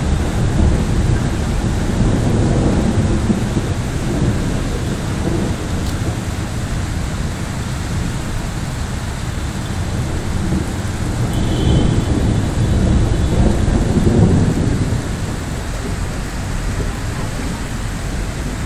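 Steady heavy rain with thunder rumbling through it, the low rumble swelling twice: a couple of seconds in and again about two-thirds of the way through.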